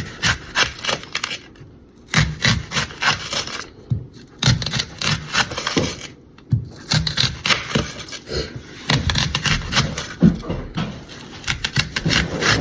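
Kitchen knife slicing onions into rings on a cutting board: runs of quick cutting strokes, several a second, with a few short pauses.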